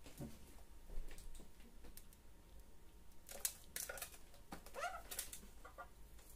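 Quiet handling noise from a steel rocket stove being turned over in the hands: scattered light clicks and taps, a cluster of sharper clicks a little past the middle, and a few brief high chirps near the end.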